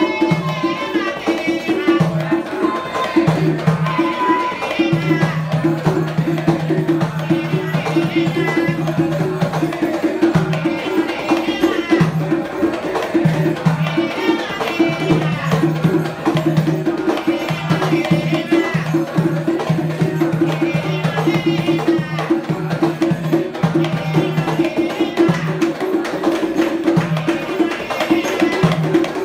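Live Afro-Cuban batá drumming in a steady interlocking rhythm, with chanted singing over it: a song for the orisha Oyá.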